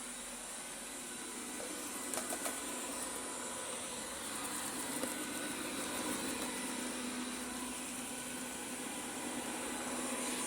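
Xiaomi S10 robot vacuum running: a steady hiss with a steady whine, with a few light clicks about two seconds in.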